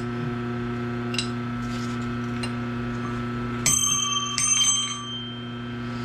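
Steel machine parts knocked against metal, two clinks a moment apart, each ringing like a bell with several clear high tones that fade within a second or two. A steady electrical hum runs underneath.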